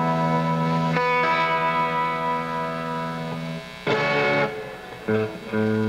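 Distorted electric guitar holding a long chord that changes about a second in, then three short chord stabs near the end.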